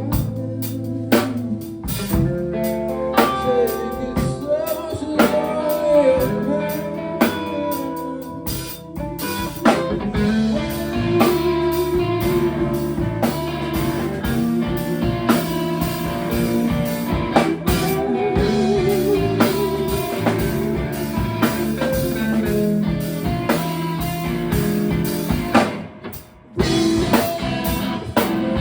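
Rock band playing live: electric guitar and drum kit driving a song. Near the end the band cuts out for a moment, then comes crashing back in.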